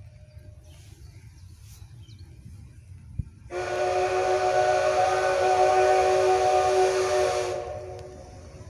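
Steam whistle of a ČSD class 556.0 "Štokr" steam locomotive: one long blast of about four seconds starting a few seconds in, a chord of several steady tones over a breathy steam hiss, tailing off at the end.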